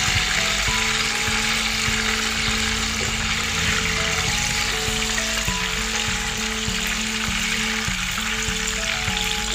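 Hot oil sizzling steadily as battered banana fritters fry in a pan, with background music playing over it.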